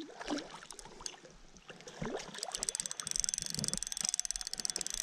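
A hooked brown trout splashing at the surface, then from about two seconds in a spinning reel clicking fast and steadily as the fish is played in.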